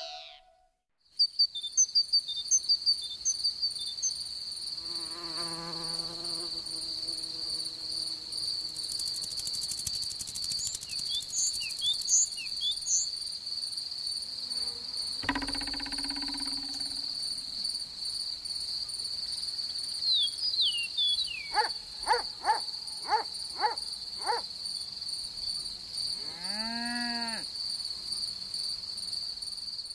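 Steady high cricket chirring as a constant trill. Over it, at intervals, come cartoon-style sound effects: a warbling buzz around five seconds in, a brief low call midway, a run of five quick falling whistles after about twenty seconds, and a rising-and-falling call near the end.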